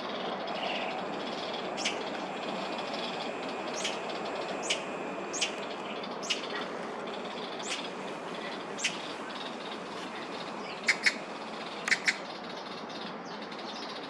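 Magpies giving short, sharp single calls every second or so, then quick double calls near the end, over a steady background noise.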